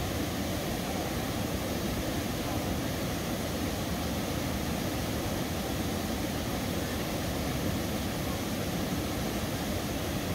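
Whitewater rapid pouring over a rock ledge: a steady, dense rush of water that holds at one level throughout.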